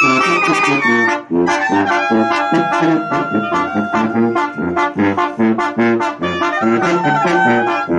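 Mexican banda music: trumpets and trombones playing a melody over a bass line that bounces at a steady beat.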